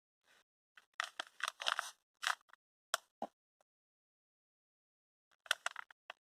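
Packaging being handled: crinkling and clicking in short clusters, about a second in and again near the end, with a single click in between.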